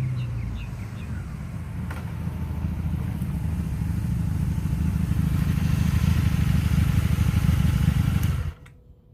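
Honda Magna VF750C's V4 engine running with a steady low pulse, then cutting off suddenly about eight and a half seconds in as it is shut down. It has a misfire and popping that the owner traces to the right-hand cylinder bank.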